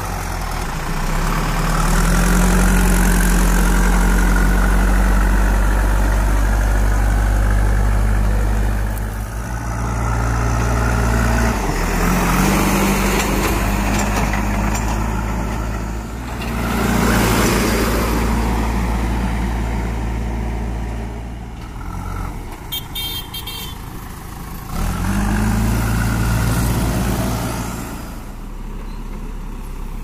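JCB 3DX backhoe loader's diesel engine running steadily, revving up and settling back three times. The sound changes abruptly in several places where separate clips are joined.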